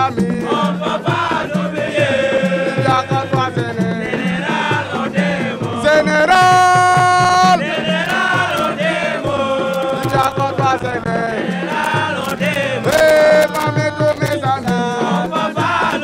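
A young man chanting a song into microphones in long, bending notes over a steady drum beat, holding one clear note for over a second about six seconds in.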